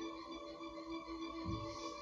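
Background music with sustained, held notes, and a soft low thump about one and a half seconds in.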